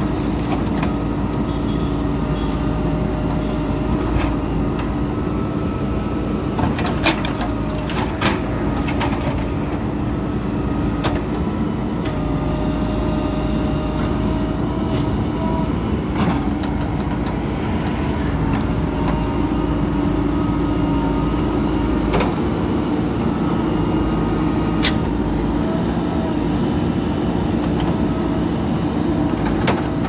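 JCB backhoe loader's diesel engine running steadily under hydraulic load as the rear bucket digs and drags through brush, with scattered sharp knocks from the bucket and arm working.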